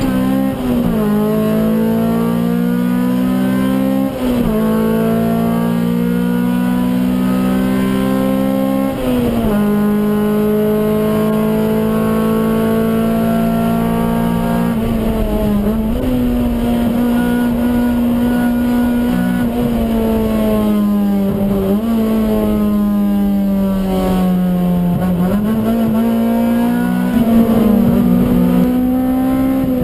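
Honda Civic EG6's B16A 1.6-litre DOHC VTEC four-cylinder engine running hard at high revs, heard from inside the cabin with road and tyre noise under it. The engine note holds fairly steady, with brief dips in pitch about five times as the driver changes gear.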